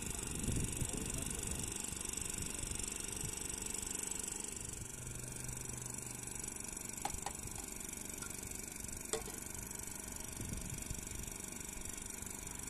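Steady background noise with a few sharp metallic clicks about seven and nine seconds in, as a ladle and kettles are handled at an open cooking fire.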